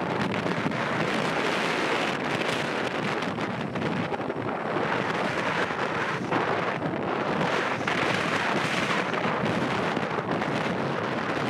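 Boeing 737-800's CFM56 jet engines running as the airliner moves along the runway: a steady rushing rumble that swells and eases, mixed with wind noise on the microphone.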